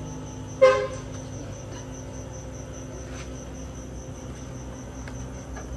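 Crickets chirping steadily in the background. About half a second in comes one short, loud squeak, as of the plastic turn-signal lens being pried from the side-mirror housing, followed by a few faint clicks.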